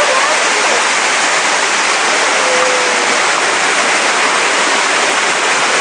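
Rushing floodwater: a steady, dense roar of moving water with no breaks.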